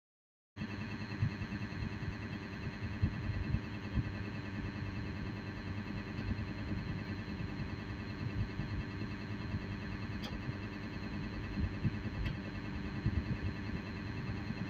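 Electric fan blower running steadily: a hum made of several steady tones over a rush of air, with a fluttering low end. It cuts in suddenly about half a second in.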